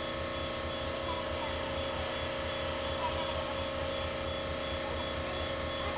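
A steady mechanical drone, like an engine running, with an even low throb underneath.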